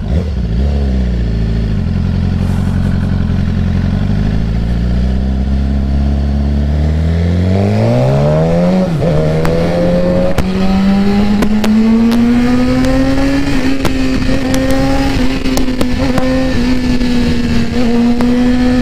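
BMW S1000RR's inline-four engine heard from the rider's seat. It runs low and steady at first, revs up sharply about seven seconds in, drops back about two seconds later as the bike shifts up, then climbs gently and holds a steady, higher pitch while cruising.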